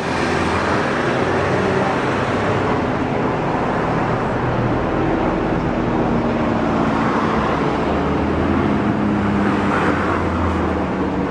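Single-engine propeller plane droning steadily in flight, with a few low engine tones that drift slightly in pitch over a steady rushing noise.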